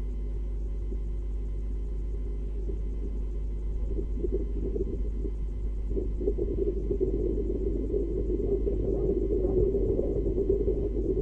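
Steady electrical hum with a low rumble. From about four seconds in, a rough, grainy low noise rises over it and gets louder.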